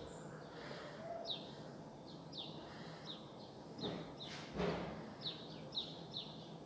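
Small birds chirping over steady outdoor background noise: many short, quick falling chirps repeated throughout. Two brief rustling bumps a little past the middle.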